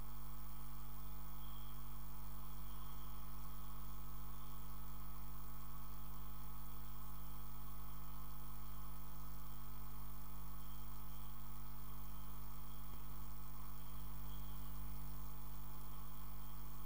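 Steady low electrical mains hum with a faint hiss, unchanging throughout.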